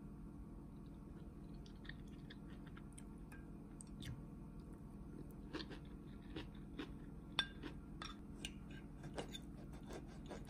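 Close-miked chewing of a mouthful of cabbage gimbap, the shredded raw cabbage crunching in short sharp crackles. Scattered clicks through the second half, the loudest about seven seconds in, with a knife and fork working against a ceramic plate near the end.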